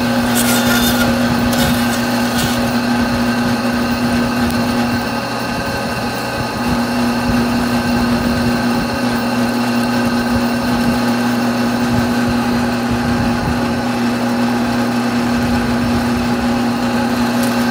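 Electric meat bandsaw running with a steady motor hum while its blade cuts through goat meat and bone. Brief scraping rasps sound twice in the first couple of seconds, and the hum dips briefly about five seconds in.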